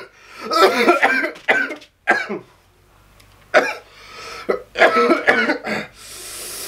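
A man coughing hard in several separate fits, his mouth burning from a ghost chili (Bhut Jolokia) pepper. A long breathy hiss follows near the end.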